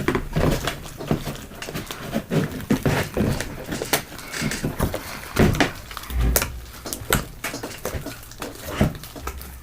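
Fluffy slime being kneaded and worked by hand, with irregular sticky squishes and clicks and a few soft thuds.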